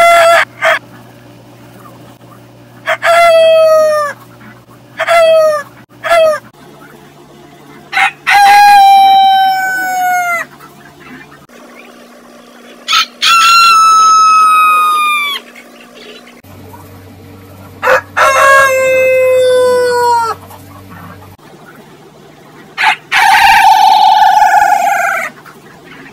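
A rooster's crow replayed about six times through voice-changer effects, a few seconds apart: reversed, pitch-raised, and near the end an alien-style distortion that makes the crow sound blocky and buzzy. A faint steady low hum runs under the clips.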